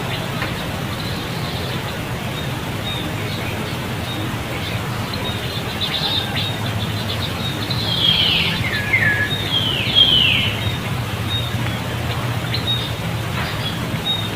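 Several high-pitched animal calls that slide downward in pitch, bunched together about eight to ten seconds in, over a steady low background hum.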